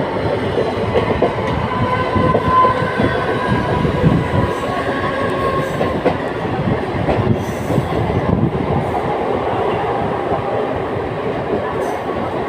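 Mumbai suburban EMU local train running at speed, heard from inside a non-AC carriage: a steady loud rumble of wheels and carriage with rhythmic clatter over the rail joints. A thin whine sits above it, strongest a couple of seconds in.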